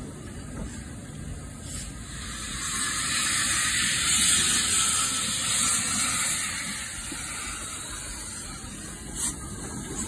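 Model of the BR Britannia-class steam locomotive 70007 running with a loud hiss of steam. The hiss swells about two seconds in and fades away over the next few seconds, over a low rumble of the train on the track.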